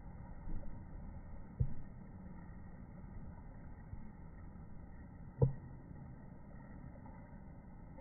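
Steady low outdoor rumble with two short sharp knocks, one about a second and a half in and a louder one about five and a half seconds in; the perched kingfisher itself is not heard.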